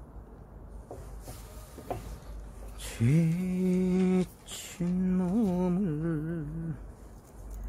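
A man hums a tune in two long held notes, the second wavering up and down, after a few seconds of faint handling sounds as he works on a mesh fish trap.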